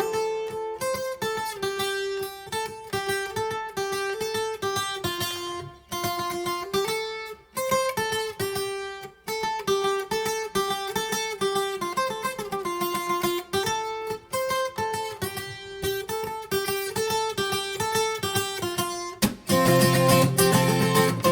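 Acoustic guitar playing an instrumental passage of single picked melody notes, turning to fuller chords with low bass notes shortly before the end.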